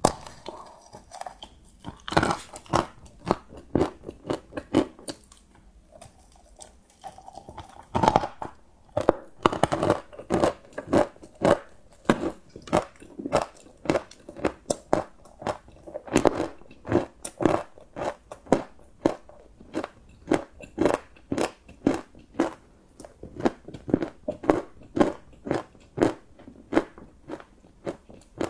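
Close-miked crunching and chewing of crunchy chocolate: a few loud crisp bites, then a steady run of crunchy chews at about two to three a second.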